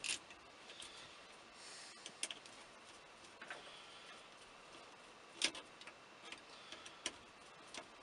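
Faint, irregular small clicks and taps of a screwdriver and small metal and plastic parts being worked at an opened-up steering column. The sharpest click comes about five and a half seconds in.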